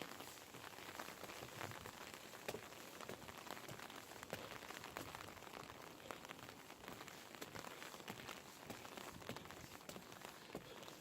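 Rain falling, with many quick, irregular ticks of single drops landing close by.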